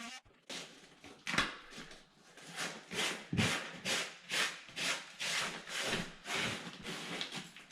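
Wood subfloor being sawn by hand, rhythmic back-and-forth strokes about two a second, deepening a cut that the power saw did not take deep enough.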